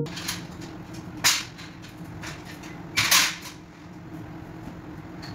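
Low steady hum in a kitchen, broken by a short knock about a second in and a longer double knock about three seconds in.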